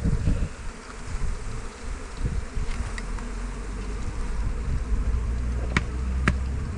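Honeybees from a colony shaken out onto the lawn buzzing around the beekeeper in the air, a dense steady hum. A low rumble builds in the second half, and two sharp clicks come near the end.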